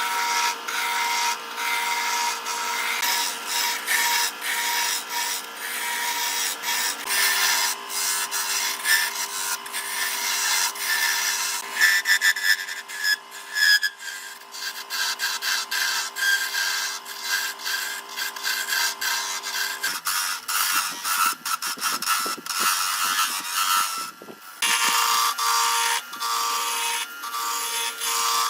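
An electric power tool working wood: a steady motor hum under rough scraping. The hum shifts slightly in pitch a few seconds in, breaks off for a few seconds of uneven scraping past the middle, then starts again near the end.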